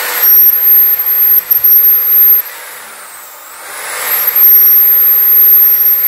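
Electric drill running in two bursts of about two seconds each, with a high whine that falls away between them and climbs again as the motor speeds back up.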